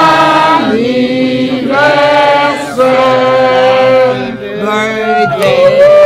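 A group of people singing a birthday song together for a cake with lit candles, in long held notes.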